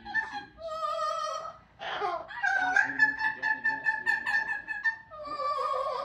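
Amazon parrot mimicking operatic singing: a series of long, steady high notes, with a short harsh squawk-like sound about two seconds in.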